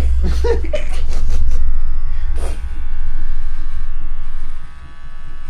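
Electric hair clippers buzzing steadily as they cut hair at the side of a man's head, the buzz dropping in level near the end.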